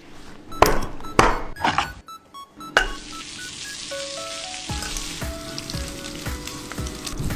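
A few sharp knocks in the first three seconds, then food sizzling steadily in a hot pan, under background music.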